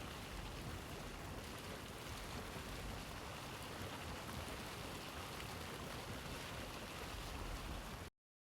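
Deildartunghuhver hot spring's water bubbling steadily, a dense even rush of noise. It cuts off suddenly to silence near the end.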